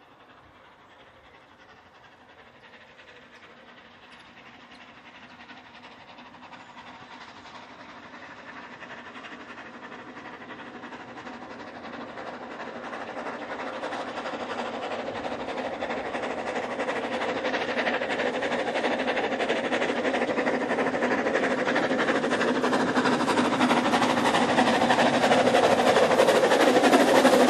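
Ffestiniog Railway double Fairlie steam locomotive Earl of Merioneth hauling a narrow gauge passenger train on its approach. It grows steadily louder as it draws near, with sharp wheel clicks on the rails starting near the end.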